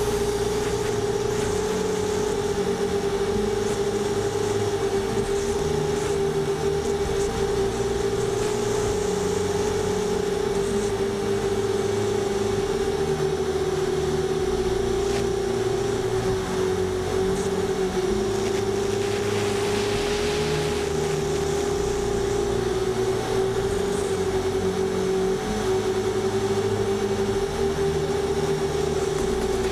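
Seven-inch FPV quadcopter's brushless motors and propellers droning at a steady, nearly constant pitch during cruise, heard from the onboard camera, with a brief rush of air about twenty seconds in.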